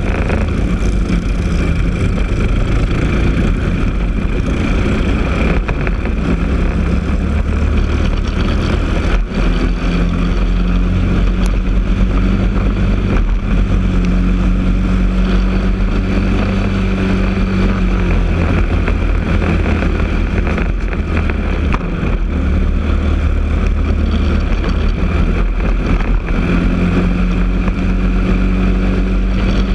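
Briggs & Stratton LO206 single-cylinder four-stroke kart engine running hard, heard onboard the kart. The engine note climbs as the kart picks up speed and dips briefly a few times.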